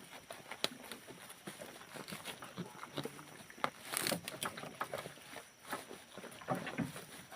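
Goats moving about, with scattered irregular knocks, clicks and rustling.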